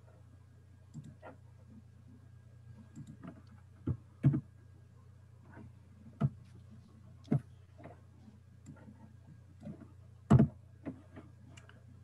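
Computer mouse clicked a dozen or so times at irregular intervals, the loudest click about ten seconds in, over a low steady hum.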